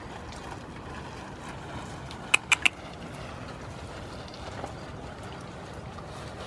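Steady low rumbling background noise, with three quick sharp clicks a little over two seconds in.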